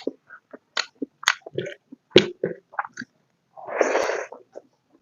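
Close-miked mouth sounds of a person eating: a string of short wet clicks and lip smacks from chewing, and one brief breathy rush about two-thirds of the way through.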